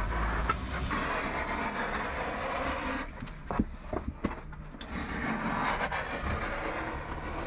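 Sheet vinyl flooring being cut and handled: a scraping, rustling noise with a few sharp knocks around the middle.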